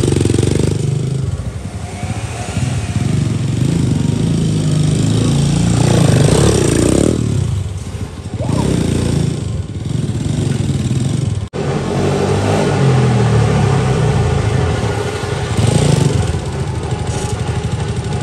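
125cc dirt bike's single-cylinder engine running and being revved, its pitch rising and falling several times, with a momentary break about eleven and a half seconds in.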